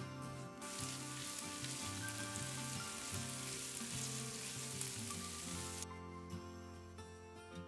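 Diced onion and bell peppers sizzling as they fry in sunflower oil in a nonstick pan while being stirred. The sizzle cuts off suddenly about six seconds in, and background music plays throughout.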